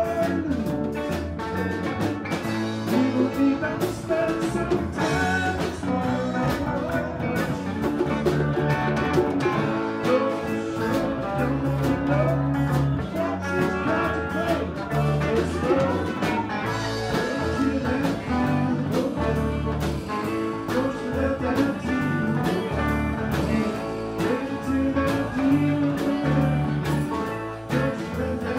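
Live band playing, with guitar lines over bass and drums.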